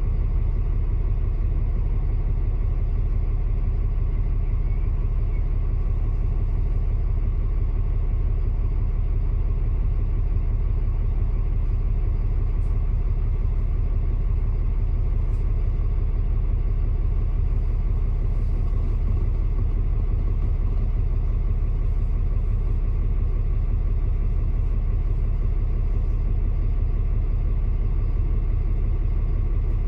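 Double-decker bus engine idling steadily while the bus stands still, heard from inside the upper deck as an even low hum.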